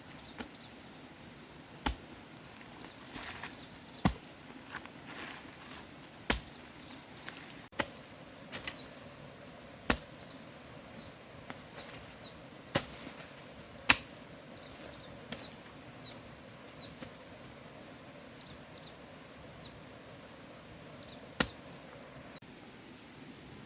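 Chopping: about ten sharp strikes of a tool on wood, spaced irregularly one to three seconds apart, each with a brief ring.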